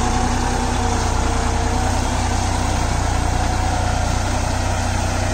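Deutz-Fahr Agromaxx 4055E tractor's diesel engine running steadily while pulling a rigid cultivator through dry field soil.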